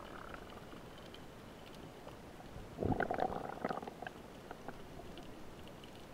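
Underwater recording: low muffled rumbling with a louder burst of knocking and clicks about three seconds in, from a speared fish thrashing against the spear line and the diver's gloved hand right at the camera.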